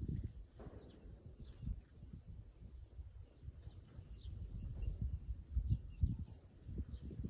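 Wind buffeting the microphone in uneven gusts, with faint, scattered high bird chirps.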